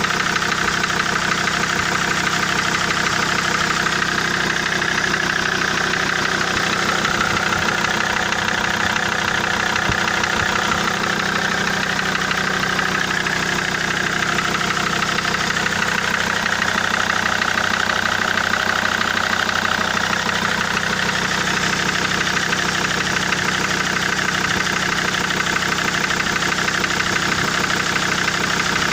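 SsangYong Rexton 2.7 five-cylinder common-rail turbodiesel idling steadily with a knock. A rebuilt third-cylinder injector and new nozzles on two others have not cured the knock, and the owner says the injectors are not the cause.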